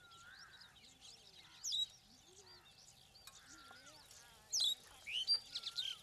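Several birds chirping and whistling: short chirps, rising whistles and a warbling note, with one loud sharp call just under two seconds in and a run of loud calls in the last second and a half.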